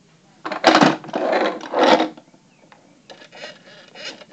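Rasping, rubbing handling noise: three loud scrapes close together in the first two seconds, then fainter scraping and rustling.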